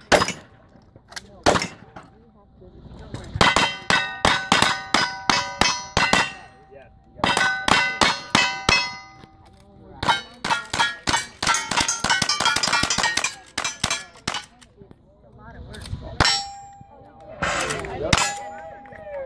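Strings of rapid gunshots with steel plate targets ringing after the hits, coming in several groups with short pauses between them.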